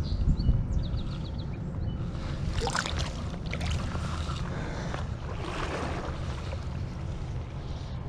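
Wind buffeting the microphone as a low rumble over the creek's shallow running water. Water splashes as hands release a trout in the stream about three seconds in, and there is a second splash near six seconds.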